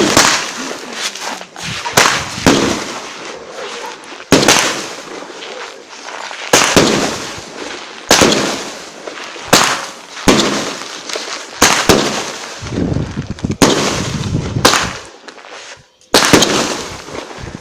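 Fireworks going off in a series: about a dozen sharp bangs, irregularly one to two seconds apart, each followed by a short crackling tail.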